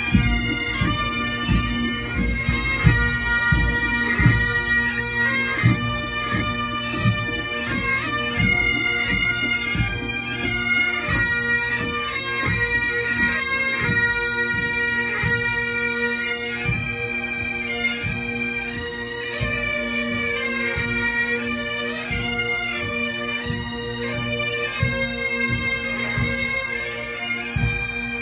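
Massed Great Highland bagpipes of a marching police pipe band playing a tune over their steady drones, with low thumps underneath.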